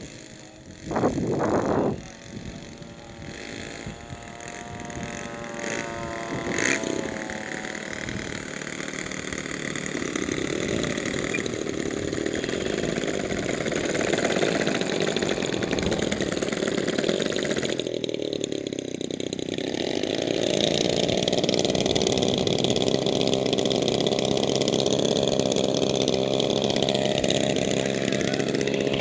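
Twin model-aircraft engines of a large RC P-38 Lightning running at low throttle on the ground. The pitch wavers up and down for the first several seconds, then settles into a steadier, louder run.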